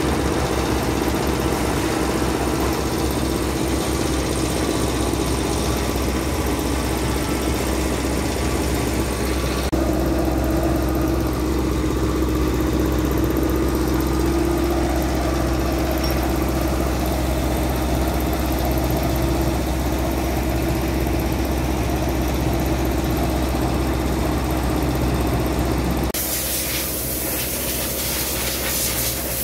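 Steady low hum of running machinery with a faint hiss. The sound changes abruptly about ten seconds in and again near the end.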